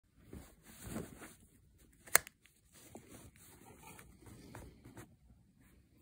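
Handling noise from a Samsung SGH-F400 slide phone being picked up and slid open: faint rustling and scraping, with one sharp click about two seconds in from the slider snapping open.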